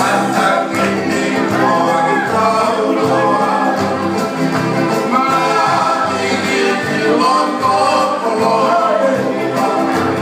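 A song with a singing voice over steady bass and accompaniment, played through loudspeakers for dancing.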